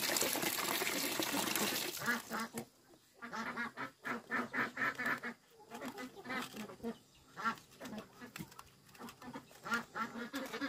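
Ducks quacking in a long series of short, repeated calls. For about the first two seconds a steady rushing noise is heard before the calls begin.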